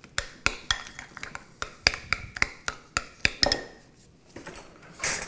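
Metal spoon clinking against a glass mixing bowl while stirring a thick deviled-egg filling: a quick, uneven run of sharp clinks that stops about three and a half seconds in.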